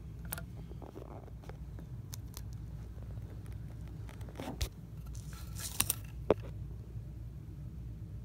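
Small clicks, scrapes and a brief rustle from hands handling parts and wiring inside an electric guitar's control cavity, with a few sharp clicks a little past the middle, the loudest about six seconds in. A steady low hum runs underneath.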